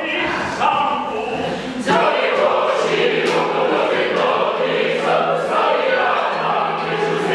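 Opera chorus singing a lively folk-style dance song in Czech, many voices together, growing fuller and louder about two seconds in, with regular sharp beats from the dancers over the singing.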